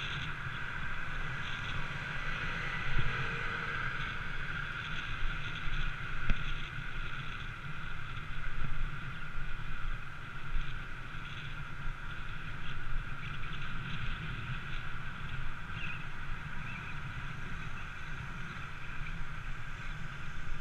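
Steady wind and road noise from riding along a street, with a deep rumble underneath and a few short knocks, the loudest about six seconds in.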